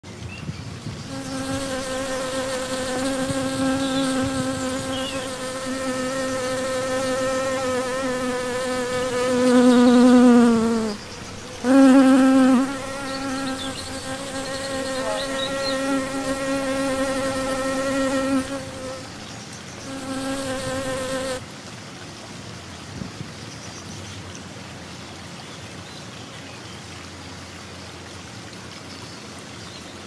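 A large black carpenter bee buzzing steadily, a low-pitched drone with a rich hum, as it bores a nest hole into a bamboo stick. The buzz sags in pitch and breaks off briefly about eleven seconds in, starts again, pauses near nineteen seconds, and stops after about twenty-one seconds, leaving only a faint hiss.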